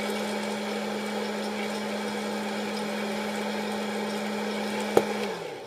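Hot-air popcorn popper running, its fan motor giving a steady hum with a rush of blown air. A click about five seconds in, then the motor winds down.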